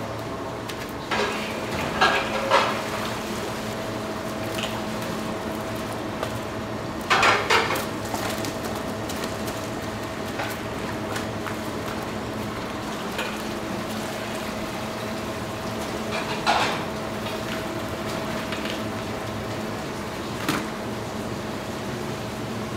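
Restaurant kitchen sounds: a steady hum with a few short bursts of clattering dishes and metal, the loudest near the start and about a third of the way in.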